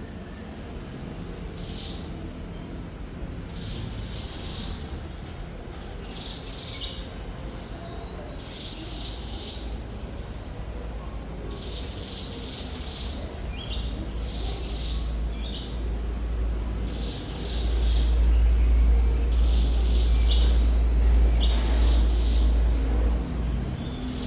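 Thrush nightingale singing: short phrases of rapid, high, clipped notes repeated every second or two. A low rumble builds underneath past the middle, is loudest for the last several seconds, and drops off just before the end.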